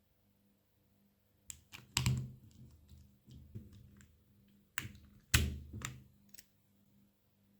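Keys on a mechanical keyboard with linear Loopy switches on an aluminium plate being pressed in an uneven run of sharp clacks. Two louder, deeper strikes land about two and five and a half seconds in, with lighter key clicks around them.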